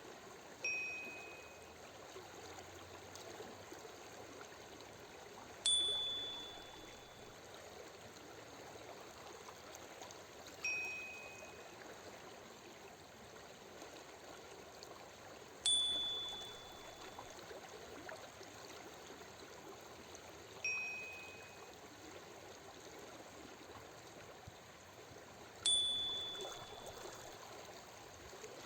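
Running water, a steady stream, under a soft chime that rings every five seconds, alternating between a lower and a higher tone, each fading out over about a second. The chimes cue the switch between breathing in for five seconds and breathing out for five seconds.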